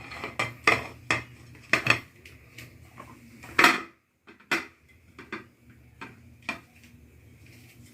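Cake pan and kitchen utensils knocking and clinking as a baked cake is turned out of its pan: a run of scattered sharp knocks, the loudest about three and a half seconds in, then a few lighter taps.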